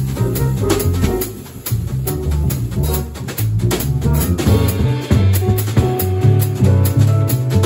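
Live jazz combo playing an original tune: upright bass playing a moving line of low notes, a drum kit keeping time with cymbal strikes, and an electric keyboard playing over them.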